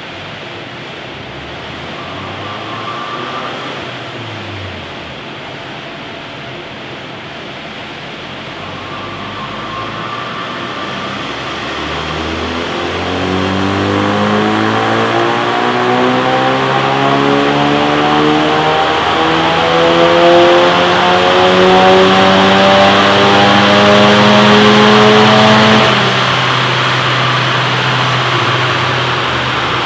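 Ford Focus RS's 2.3-litre turbocharged four-cylinder, fitted with an Eventuri intake and a bigger intercooler, doing a full-load run on a chassis dynamometer. Over a steady rushing noise, the engine revs climb steadily in pitch from about a third of the way in and even out at the top. A few seconds before the end it cuts off sharply as it lifts off, leaving a lower steady hum.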